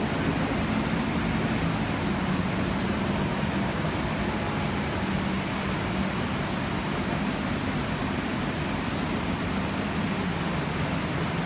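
Steady rushing noise of a large waterfall and the river rapids below it, with a low rumble underneath.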